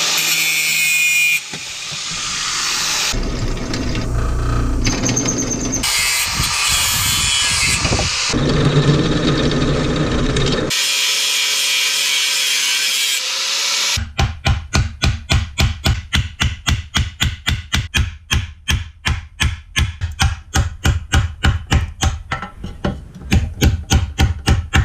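Makita angle grinder cutting and grinding steel, in several short stretches. About halfway through it gives way to quick, even hammer blows, about three a second, on a leaf-spring-steel spearhead socket resting on an anvil.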